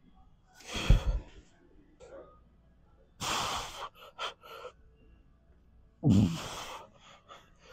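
A man breathing hard through a set of heavy dumbbell chest flies: three loud forceful exhales a few seconds apart, with quick short breaths after the second and third.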